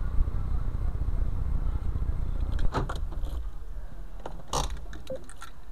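A car's engine idles as a steady low rumble that eases about three seconds in. A few short clicks and knocks follow in the car.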